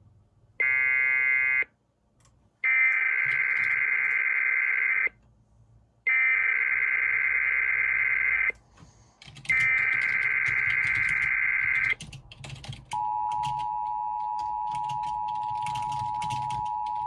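Emergency alert broadcast coding: a short burst of shrill two-pitch digital data, then three longer identical data bursts with about a second of silence between them, followed by a steady two-tone alert signal held for about five seconds. These are the SAME header bursts and attention tone that open a relayed weather warning.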